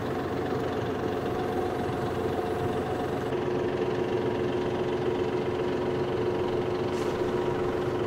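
Tractor diesel engine running at a steady speed, with a faint higher whine that drops out about three seconds in.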